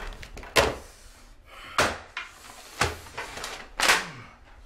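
Four sharp bangs about a second apart, a man banging at an office desk in agitation.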